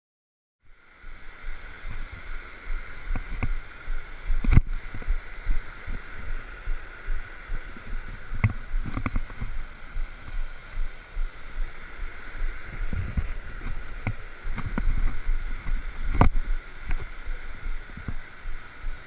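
Steady rush of falling water, with frequent low thumps and a few sharp knocks from the microphone being handled or buffeted.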